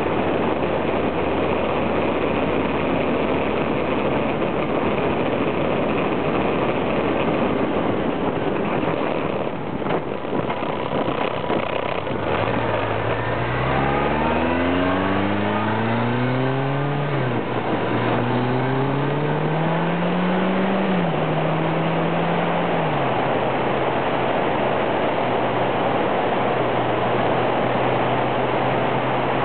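Heavy wind rush over a motorcycle-mounted camera, with a motorcycle engine note coming up about halfway through. The engine pitch climbs as the bike accelerates, falls back sharply at gear changes, then holds a steady lower note near the end.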